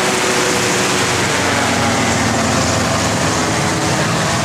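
Steady rush of breaking waves and white water in the shore break, with a faint low hum underneath.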